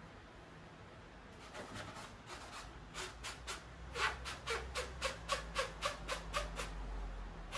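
A white sponge rubbed back and forth over silk wallpaper in quick strokes, about four a second, many with a short squeak. The strokes start faint about a second and a half in and get louder about four seconds in.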